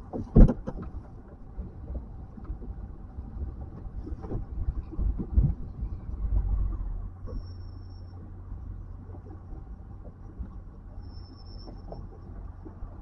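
Low rumble of strong wind buffeting the microphone on a boat, with a few knocks and thumps, the loudest about half a second in.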